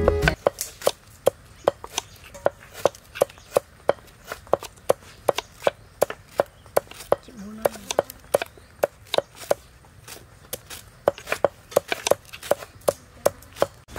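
Kitchen knife cutting shallots on a thick wooden chopping block: a steady string of sharp knocks, about three a second, as the blade goes through and strikes the wood.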